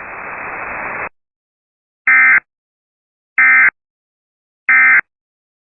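Emergency Alert System end-of-message: a second of radio hiss cuts off, then three short, identical bursts of SAME digital data tones, about 1.3 s apart. These bursts signal the end of the alert.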